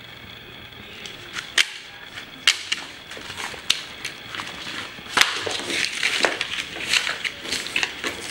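Sharp clicks and rustling from a wallet, cards and banknotes being handled and rifled through, getting busier over the last few seconds.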